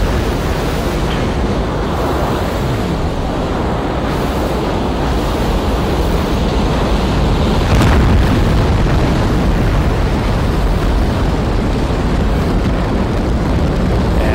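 Space shuttle launch roar: the rocket engines give a loud, steady rumble, with a step up in level about eight seconds in.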